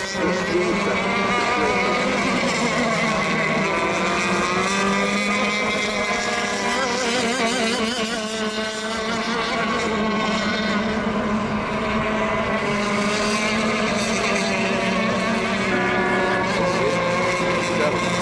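Several radio-controlled racing boats' engines running together out on the water, their overlapping pitches wavering up and down as they throttle and circle before a race start.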